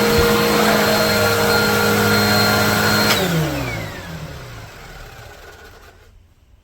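Bissell AeroSwift Turbo Compact upright vacuum cleaner running steadily, then switched off about three seconds in; its motor winds down with a falling whine over the next two seconds and fades out.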